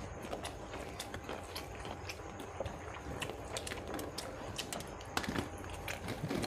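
People eating rice and fish curry: chewing, with many scattered small clicks and ticks.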